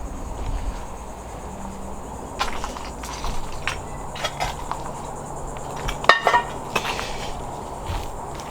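Insects buzzing steadily in overgrown vegetation, with scattered crunches and snaps from someone walking through brush. The loudest crunches come about six seconds in.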